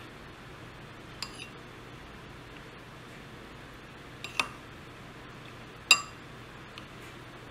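A metal spoon clinking against a glazed ceramic bowl three times while scooping yogurt: about a second in, a little past four seconds and near six seconds. Each clink rings briefly, and the last is the loudest. A faint steady hiss runs beneath.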